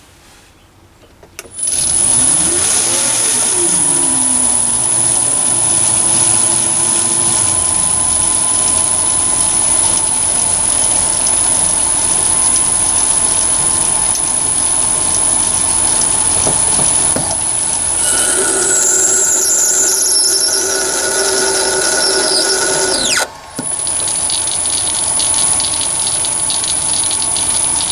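A Chinese mini lathe with a VFD-driven motor starts about a second and a half in, spins up and runs with a steady high whine while an 8 mm HSS spiral tap cuts a thread into brass. Extra squealing tones join in during the last few seconds of the cut. Near the end the spindle stops briefly and starts again, switched straight into reverse to back the tap out.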